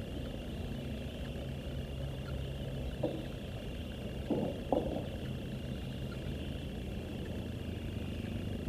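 Steady low motor drone with a thin, steady high-pitched whine over it, and three short knocks about three to five seconds in.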